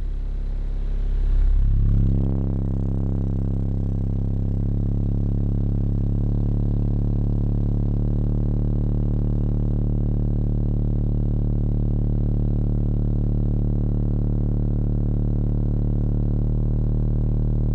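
Car-audio subwoofers (four 12s, two 15s and an 18) playing loud bass test tones. A low tone is held for a few seconds at a time and changes pitch in steps several times.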